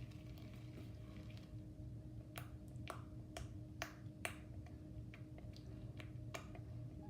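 Slime being squeezed and poked by hand, giving a series of sharp little pops and clicks about half a second apart, starting about two seconds in, with a few more near the end.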